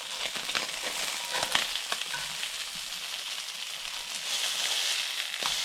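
A snapper fillet frying in a hot skillet: a steady sizzle with scattered crackles and pops, swelling a little near the end.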